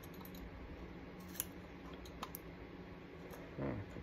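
Needle-nose pliers clicking against a thin glued-on metal plate as it is pried and ripped off a plastic case: a few sharp isolated clicks, then near the end a brief sound sliding down in pitch.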